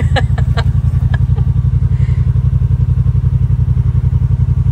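Yamaha RMAX side-by-side's engine running steadily with an even, rapid pulse as it drives. A few sharp clicks and rattles come in the first second and a half.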